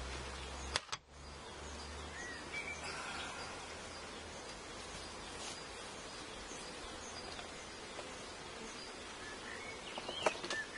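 Outdoor ambience beside an open beehive: a steady hiss with bees buzzing and a few short bird chirps. A single sharp knock comes about a second in, and a few light knocks near the end.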